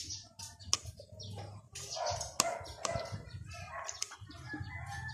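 Chickens clucking, with several sharp clicks or knocks.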